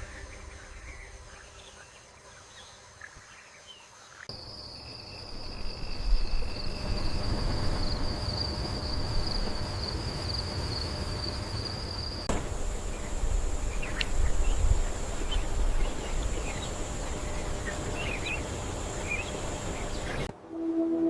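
Rainforest insects holding a steady, high-pitched drone under a low rumble of ambience, with a second, lower insect tone alongside for a few seconds. Soon after midway it switches abruptly to an even higher insect tone, with scattered bird chirps over it. The first few seconds are quieter, with only faint bird chirps.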